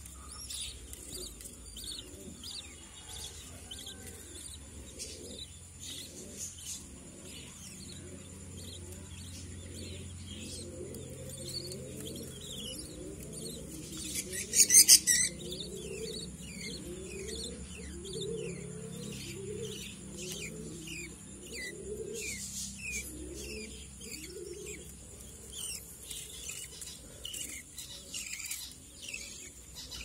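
Aviary birds, budgerigars among them, chirping constantly: a dense stream of short, falling chirps over lower, rhythmic cooing calls. About halfway through there is a sudden loud, harsh burst lasting about a second.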